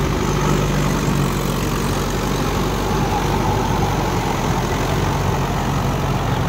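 Mahindra Yuvo Tech+ 585 DI tractor's diesel engine running steadily under load as the tractor drives a rotavator through flooded paddy mud.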